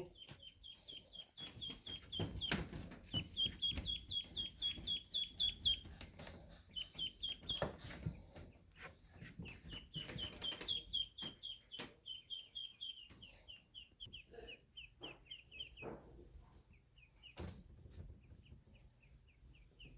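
White Pekin ducklings peeping in quick runs of short high notes, with a few knocks and rustles in between.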